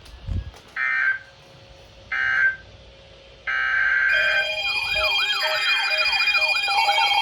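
Emergency Alert System weather-radio tones: three short bursts of digital data tones, then from about four seconds in several alert tones at once. Steady tones sound together with a wailing, siren-like sweep about three times a second, marking the start of a new warning, the flash flood warning.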